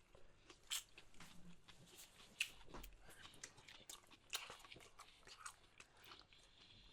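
Faint chewing and crunching of food, with scattered short crisp clicks.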